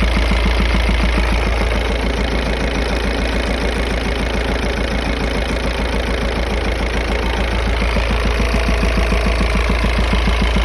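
Volkswagen-group 1.9 TDI (AVF) four-cylinder turbodiesel idling with a regular, rhythmic knock, the knock located around the turbocharger.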